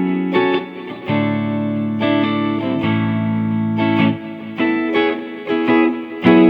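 Electric guitar, likely a Stratocaster, played through a Bludotone amp: a run of chords struck one after another, each ringing for about half a second to a second.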